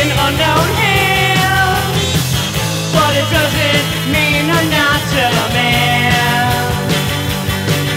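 Rock music from a full band, with a melodic lead line sliding between notes over a steady low end.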